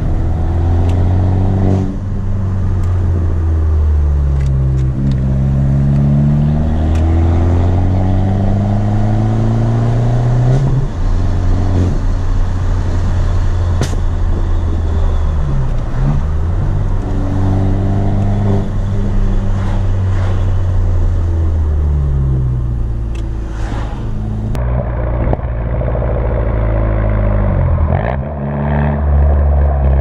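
Alfa MiTo 1.4 T-Jet 120 CV turbo four-cylinder with a straight-through exhaust, heard from inside the cabin while driving. The engine note climbs in pitch and drops back again and again as the car accelerates, changes gear and lifts off.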